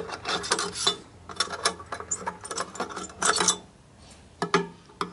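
Irregular light metallic clicks and short scrapes of a screwdriver tip against circuit-board components and the metal chassis of an electronics unit, with a quieter pause near the end.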